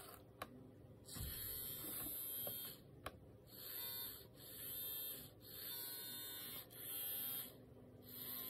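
Feetech STS3215 serial bus servo whirring in about six short bursts, from a fraction of a second to about a second and a half each, as its motor and gearbox turn the output shaft to new goal positions. Two sharp clicks come between the bursts, one near the start and one about three seconds in.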